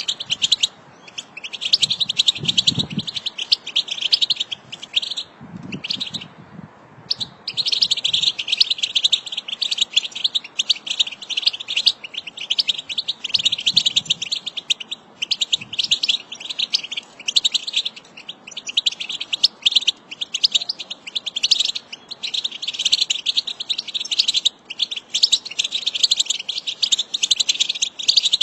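European goldfinch singing its rapid chattering twitter (the 'batbata'), in long dense phrases broken by short pauses, the longest about six seconds in. A few faint low thuds sound under the song early on.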